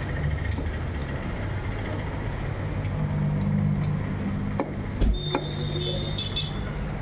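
Steady low hum of a running engine, like an idling vehicle, with scattered sharp ticks of a large knife scraping and chopping small fish on a chopping block.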